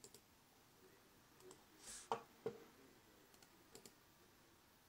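Near silence broken by two faint clicks about half a second apart, a little over two seconds in: a computer mouse being clicked to select text and open a right-click menu.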